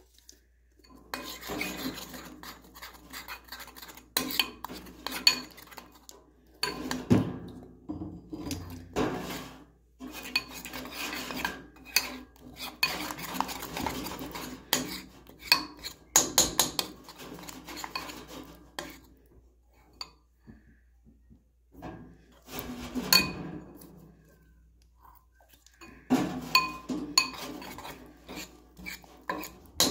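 Metal spoon scraping and clinking against a bowl while stirring thick slime mixture, in stretches with a couple of short pauses.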